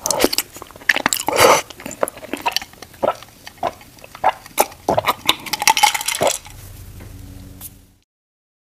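Close-miked wet mouth sounds of slurping and chewing creamy white-sauce pasta, with many sharp smacks and clicks, then sips from a glass of iced water. A faint steady hum follows before the sound cuts off abruptly near the end.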